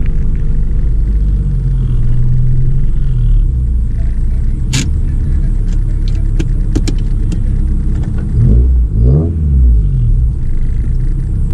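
Honda Civic Nouva's engine heard from inside the cabin, running low and steady as the car crawls in first gear and then sits idling in neutral. A few sharp clicks come between about five and seven seconds in, and the engine sound briefly swells with a rise and fall in pitch around eight to nine seconds.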